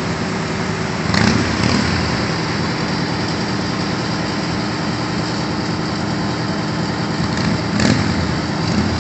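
Vehicle engines idling steadily close by in street traffic, with two brief louder rushes of noise about a second in and near the end.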